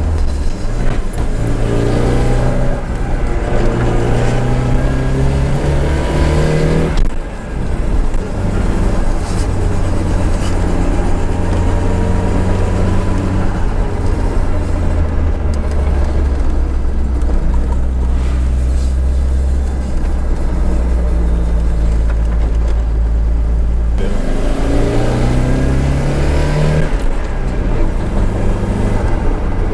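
Nissan 200SX S13's CA18DET turbocharged four-cylinder engine under way. It rises in pitch twice as it accelerates, each climb ending in a sudden drop in revs, with a steadier stretch of driving in between.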